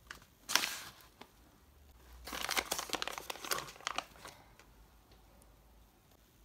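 Crinkling of a hand-made paper package with a glossy, taped surface as hands set it down and press it flat: a short rustle about half a second in, then a dense run of crisp crinkles for about two seconds.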